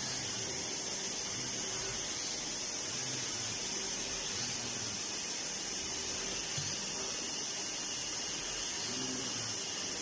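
Enclosed drilling machine running during engine bearing production, with a steady hiss of coolant spray over a low machine hum.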